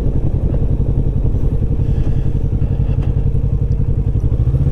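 Kawasaki Vulcan S 650 parallel-twin engine running steadily at low speed, a low drone that picks up slightly in pitch near the end.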